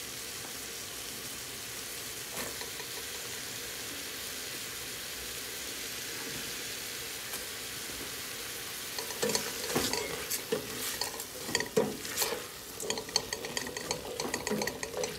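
Chopped carrots and celery sizzling in a stainless steel pot, a steady hiss. From about nine seconds in, a silicone spatula stirs them, with irregular scrapes and clicks against the pot.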